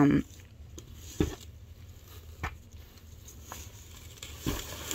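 Quiet handling of a dress and cardboard box: soft fabric rustling with a few light knocks spread through, over a faint low hum.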